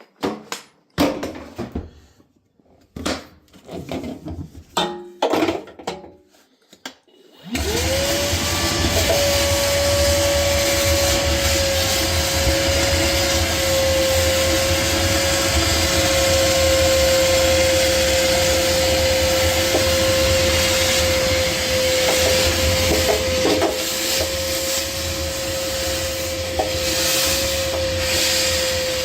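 A few knocks and clicks of handling, then about seven and a half seconds in a wet/dry vacuum switches on, spins up and runs steadily with a high whine. It is sucking the standing water out of a clothes washer that won't drain.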